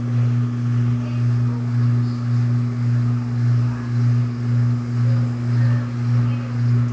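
Electrolux LTD13 13 kg top-load washing machine running in the second rinse of its heavy-soil program: a steady low motor hum that swells and fades about one and a half times a second.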